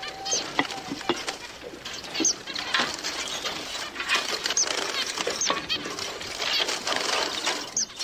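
Small caged birds chirping busily, a dense run of quick high chirps that sweep up and down in pitch.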